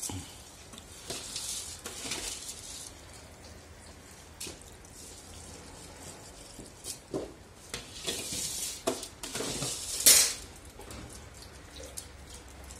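Metal skimmer ladle scraping, clinking and splashing through rice in boiling broth in a large plov cauldron, in several spells, with the loudest a short sharp clatter about ten seconds in.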